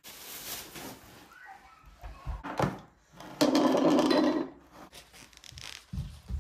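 Kitchen handling noise as food and skewers are moved about on a counter: light knocks and clicks, with a louder, noisy sound about a second long near the middle.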